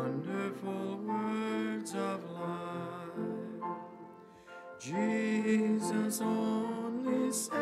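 A slow hymn sung with instrumental accompaniment. It moves in long held notes, and the voice slides up into a new phrase near the start and again about five seconds in.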